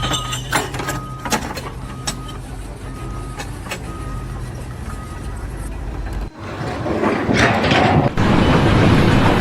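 A vehicle's reversing alarm beeping about once a second, one steady tone per beep, with a few sharp clicks and knocks. After a sudden cut about six seconds in, a heavy engine runs, louder.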